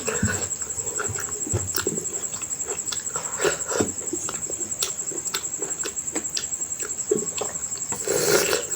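Close-miked wet chewing and mouth smacks of someone eating rice with mutton curry, in quick irregular clicks, with a steady high whine underneath.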